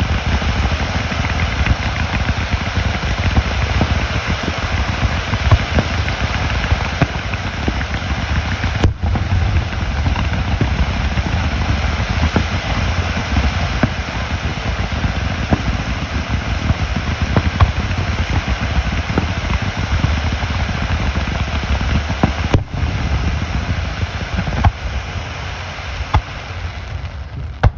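Fireworks going off in a dense, continuous barrage: many overlapping bursts and crackles over a deep rumble of booms, at a steady level.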